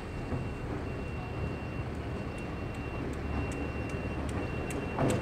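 Diesel locomotive running with a steady low rumble and a faint high whine that cuts in and out. Light clicks come in from about two seconds in, and the sound gets louder near the end.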